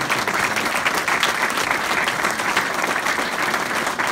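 Crowd of people applauding, a steady dense clapping.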